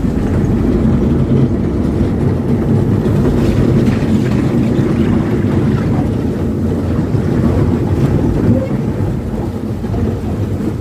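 Wind buffeting the microphone on a moving boat: a loud, steady low rumble.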